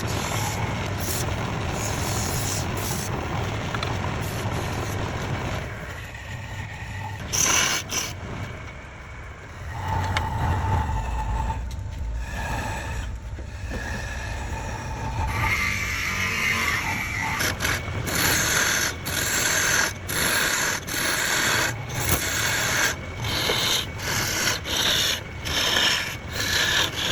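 Wood lathe running while a tool or abrasive scrapes and rubs against the spinning wood, changing in character several times; near the end there is a regular stroking about once a second.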